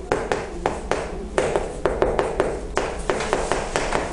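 Chalk writing on a chalkboard: a quick, irregular run of sharp taps and short scratchy strokes, about three or four a second.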